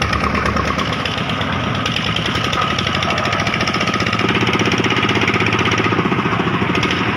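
Engine running with a fast, steady chugging knock, in the manner of a small tractor engine.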